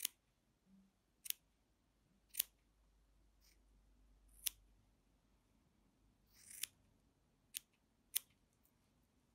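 Scissors snipping the ends of a fringe of white crochet threads short. About seven sharp cuts come at irregular intervals, roughly one a second.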